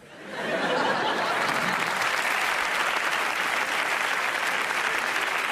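Live audience applauding, swelling up within the first half-second and then holding steady.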